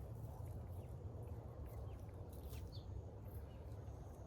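Faint outdoor garden ambience: a steady low rumble with scattered short, high bird chirps.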